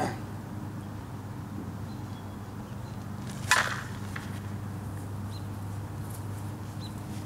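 A single sharp crack of a softball bat striking a pitched ball, about three and a half seconds in, with a brief ring, over a steady low hum.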